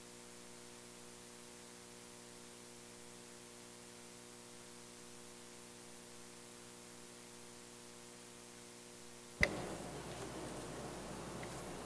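Faint steady electrical hum and hiss from a hearing-room sound system with the microphones closed. About nine seconds in, a sharp click as a microphone is switched on, after which the open-mic room noise is louder.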